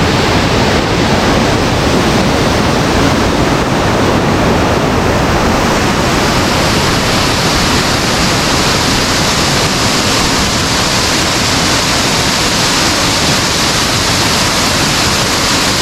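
Cascading waterfall, a steady loud rush of falling water that grows brighter and more hissing from about six seconds in.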